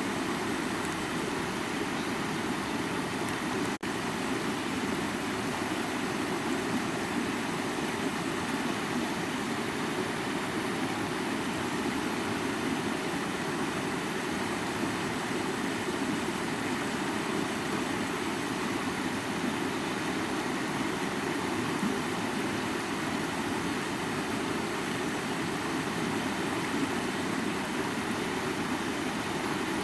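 Water falling from a high waterfall: a steady, unbroken rushing noise with a deep body, broken only by a momentary dropout about four seconds in.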